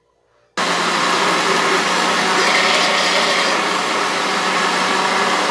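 Countertop electric blender running, grinding soaked canjica corn kernels with coconut milk into a batter. It starts about half a second in, runs at a steady motor hum, and cuts off near the end.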